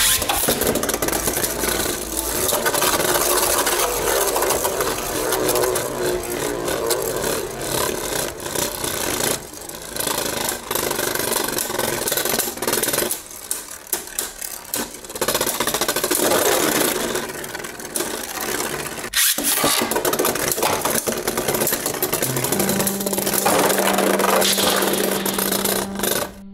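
Two Beyblade Burst spinning tops whirring and scraping across a plastic stadium floor, clashing against each other and the walls in repeated sharp knocks. Near the end a single top spins on alone with a steady hum.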